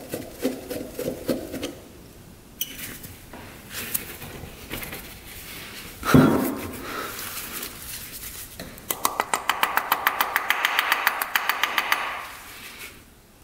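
Hand tools working on a clogged motorcycle carburetor while the stuck pilot jet is being backed out: small handling and scraping noises, a loud knock a little under halfway, then a run of rapid, even clicking, about eight a second, lasting some three seconds near the end.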